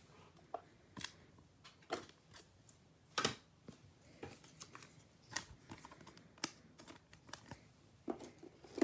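Trading cards handled by hand: faint scattered clicks and slides as the cards are flipped through and sorted, the loudest snap about three seconds in.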